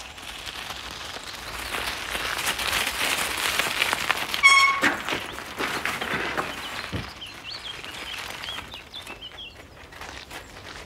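Bicycle tyres crunching over a gravel drive, growing louder as two bikes approach, then a brief high squeal about four and a half seconds in as the brakes bring them to a stop.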